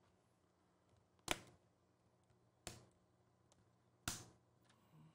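Plastic screen bezel of an HP Chromebook snapping onto the lid: three sharp clicks about a second and a half apart as its edge clips catch.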